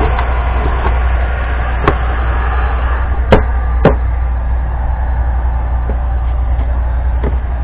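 Heat gun blowing steadily on its highest setting, with a few sharp clicks about two, three and four seconds in.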